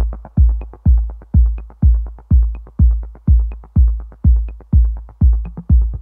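Electronic dance music with a heavy, steady kick-drum beat, about two beats a second, and a light high tick about once a second.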